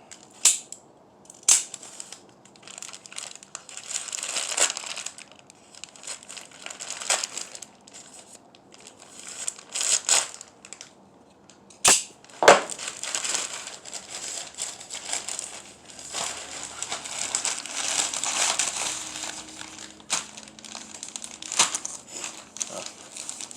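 Plastic packaging crinkling and rustling as a mail order is unpacked, in irregular spells, with a few sharp snaps, the loudest two close together about halfway through.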